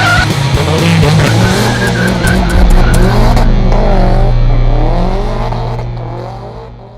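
A car drifting: its engine running hard while the tyres squeal with a wavering pitch, fading out near the end.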